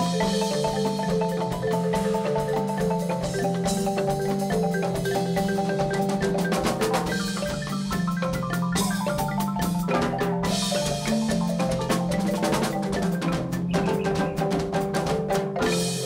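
Marimba played four-handed by two players, a repeating bass figure under fast melodic notes, with congas and a drum kit keeping the groove in a live percussion ensemble.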